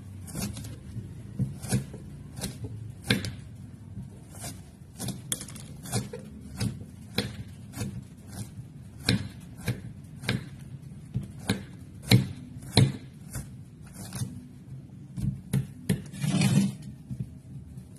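Irregular crisp snaps and clicks, about one or two a second, as the bracts and florets of a banana blossom are peeled and broken off by hand, with a longer rustle near the end. A low steady hum runs underneath.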